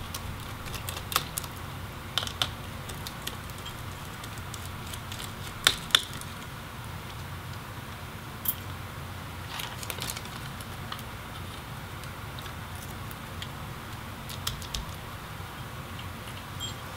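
Scattered light clicks and clinks of a small screwdriver and the laptop's small metal and plastic parts being handled, over a steady low hum. The loudest are two clicks close together about six seconds in.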